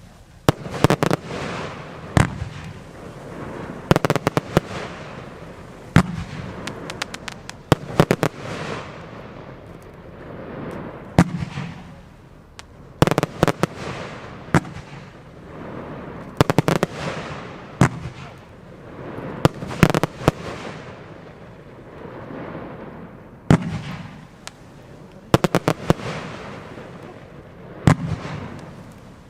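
'Mega Willows' consumer firework going off: a series of sharp bangs, some single and some in quick clusters, every second or two, with a hiss between the shots.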